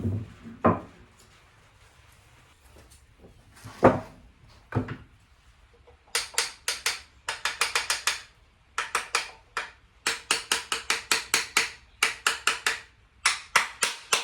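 Wooden jack plane: a few hard knocks in the first five seconds, then runs of quick, short strokes on wood at about six a second, in bursts, as the freshly set plane is tried out.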